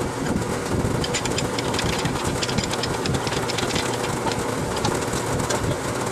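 Steady mechanical hum and rumble, with scattered light metallic clicks and taps from hand work on a bare engine block.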